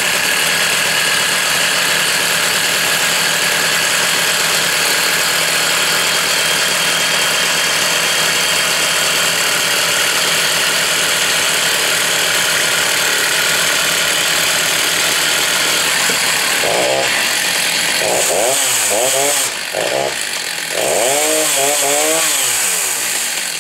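Two-stroke chainsaw running steadily at high speed, then revved up and down several times near the end.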